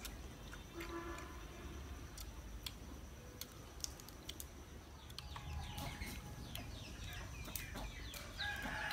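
Chickens clucking, a run of short falling calls starting about five seconds in, over faint scattered clicks.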